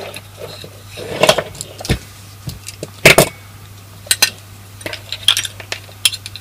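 Small metal clinks and knocks from a sheet-metal project box being handled as wired switches are fitted into it: scattered sharp taps, the loudest about three seconds in.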